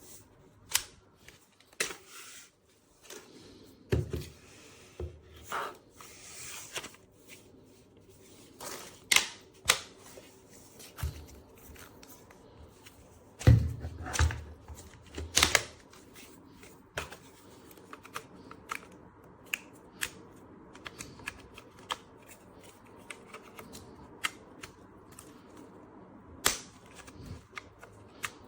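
Irregular clicks, taps and knocks of hard objects being handled close up, with a few heavier thumps about four seconds in and around the middle.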